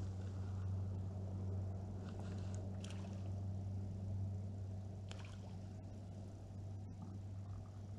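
Faint water sounds around a kayak on calm water, over a steady low hum, with a few light ticks.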